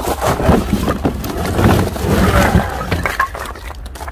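Strong wind buffeting the microphone, a steady low rumble, with irregular rustling and knocks from handling the delivered firewood.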